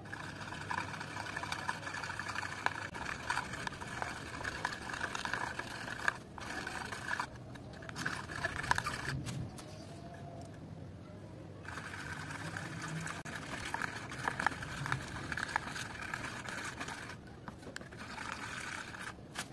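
Metal palette knife scraping, stirring and squishing thick wet paint against a plastic palette, a sticky crackling sound in stretches of several seconds with three short pauses between.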